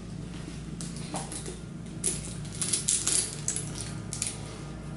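Thick gold-tone metal chain strap of a handbag clinking as it is pulled out of a cloth dust bag, with cloth rustling. A few clinks come about a second in, and they come thickest from about two seconds in until just before the end.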